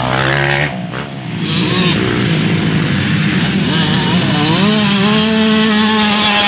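Motocross dirt bike engines revving on the track, their pitch rising and falling with the throttle. About four seconds in, one climbs in pitch and holds a high, steady rev as it passes close.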